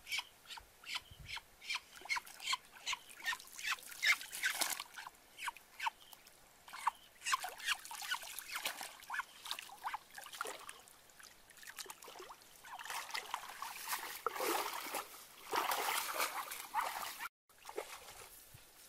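A wild duck quacking in rapid repeated calls as it is grabbed by hand in shallow muddy water, with splashing as it struggles. The sound breaks off abruptly near the end.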